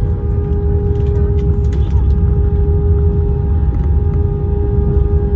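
Cabin noise of a jet airliner rolling out after landing: a deep steady rumble with a steady engine whine held at one pitch.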